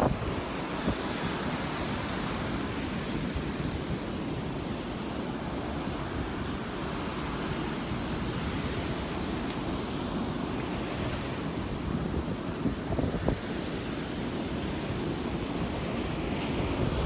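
Gulf surf washing steadily onto a sandy beach, with wind buffeting the microphone.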